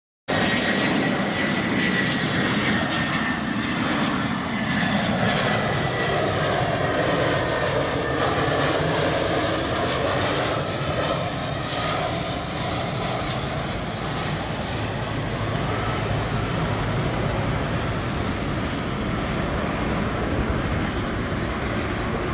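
Peach Airbus A320 jet airliner on landing approach, its engines giving a steady roar with a high whine that falls in pitch as it passes. The sound settles into a steadier, slightly quieter roar over the last half.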